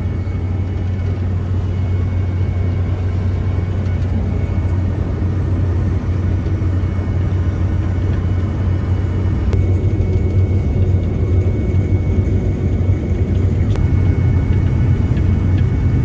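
Claas Lexion combine harvester heard from inside its cab, running with a steady low drone while harvesting wheat and unloading grain through its auger. A thin high whine comes and goes over it, and the machine gets a little louder about halfway through.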